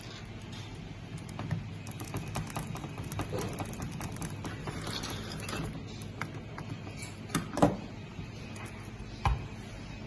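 Small clicks and light taps of parts and tools being handled on a fusion splicer under repair, with a louder knock about three-quarters of the way through and another near the end, over a steady low hum.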